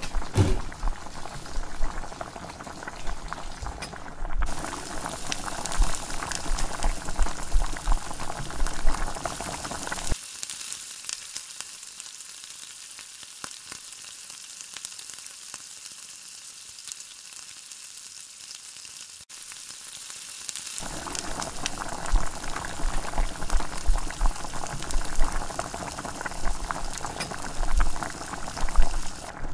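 Shrimp, squash and string beans simmering in coconut milk in a pan on the stove, bubbling and sizzling with a steady crackling hiss. For about ten seconds in the middle it drops to a thinner, quieter hiss.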